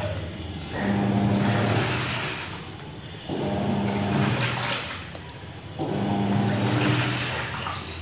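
Amazon Basics 6.5 kg fully automatic washing machine in its wash cycle: the motor hums and the water churns in three bursts of about a second and a half, with quieter pauses between, as the drum is turned back and forth through the load.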